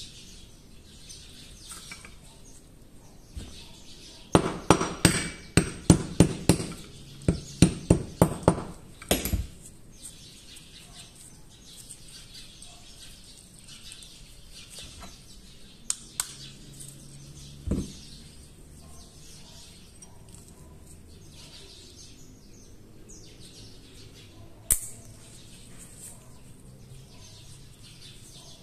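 Sharp metallic taps, a quick run of about fifteen at roughly three a second, from work on a Beretta 950 pistol's slide to free the small pin that holds its firing pin. Three lone clicks follow later.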